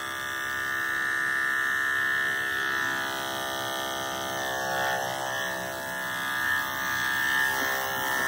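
Andis electric dog clippers running at a steady, even pitch as they shave a schnauzer's coat down the hind leg.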